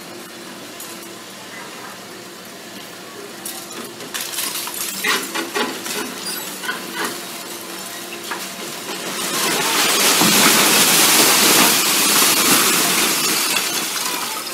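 Doosan tracked excavator's diesel engine running steadily as its bucket breaks brick and concrete, with clinks and crashes of falling debris in the middle. About ten seconds in, a section of the building collapses in a long crash of pouring rubble, the loudest sound, lasting several seconds.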